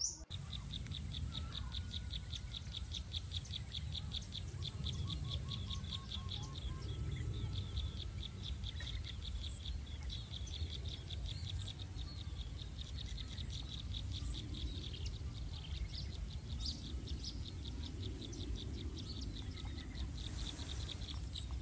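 Outdoor forest ambience of insects and birds. A steady high insect drone runs under a fast, even pulsing insect trill, which is strongest in the first half, with a few short bird calls and a low rumble like wind on the microphone.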